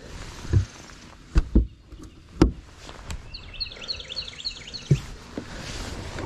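A few sharp knocks and bumps, with a bird's quick run of about six chirps about three seconds in.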